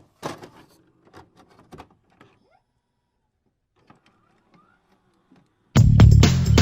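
Scattered soft clicks and short sound effects, mostly in the first two seconds, then loud music with heavy bass starts abruptly near the end.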